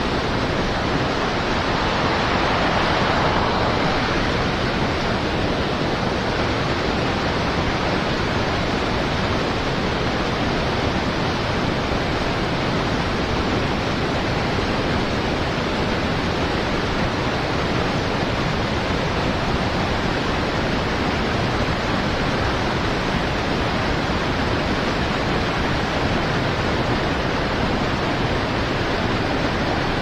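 River rapids below a dam rushing steadily, an even, unbroken roar of moving water.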